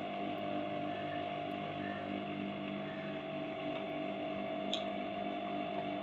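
Sewing machine running steadily as it stitches through cloth, with one short sharp click near the end.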